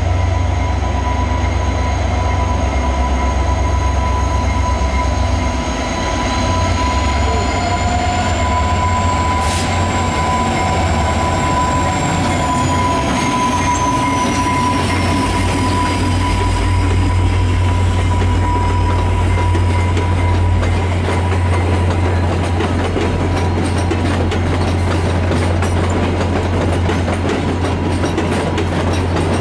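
VIA Rail F40PH diesel locomotive (EMD 16-cylinder two-stroke engine) pulling a passenger train slowly past, with a deep steady rumble. Thin high squealing tones come from the wheels on the curving switches, one rising and then falling in pitch about halfway through, and they fade as the coaches follow. Wheels click over the rail joints near the end.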